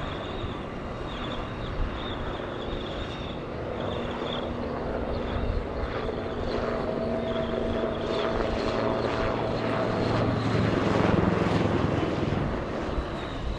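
HAL Dhruv helicopter flying a display pass, its rotor and turbine running steadily. The sound grows louder as it comes closer and is loudest about eleven seconds in.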